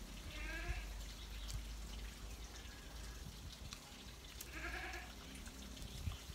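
A goat bleating twice, each a short wavering call, about four seconds apart, over the steady faint rush of a stream.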